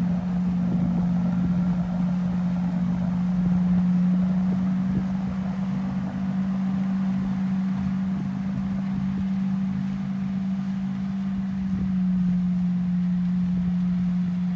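Tractor pulling a Tanzi 14 m air seeder at work: a steady drone of engine and seeder, with one strong low hum that holds level throughout.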